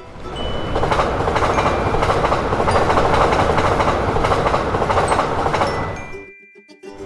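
Train running past, a steady loud rumble of wheels on rails that fades away about six seconds in.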